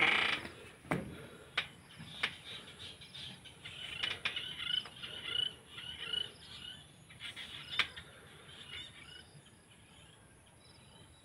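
Several sharp knocks from the phone being handled: a loud one at the start, three more in the first couple of seconds and one about eight seconds in. In between there is faint, high chirping.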